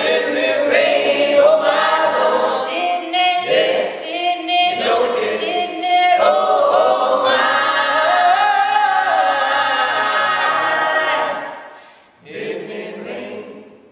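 Mixed choir singing a gospel song a cappella, ending on a chord that dies away about eleven seconds in, followed near the end by a short, softer sound.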